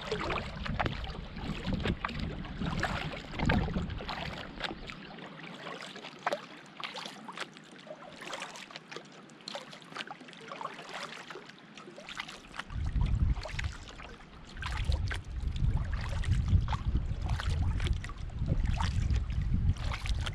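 Canoe being paddled: irregular small splashes, drips and light knocks of the paddle in the water. Wind rumbles on the microphone, dropping away for several seconds in the middle and then returning.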